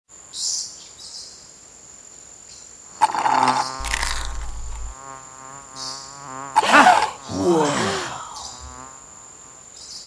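Night insects chirping: a thin, steady high trill with short chirps over it. About three seconds in, sustained tones swell in with a low rumble, and sliding pitched sounds follow near the end.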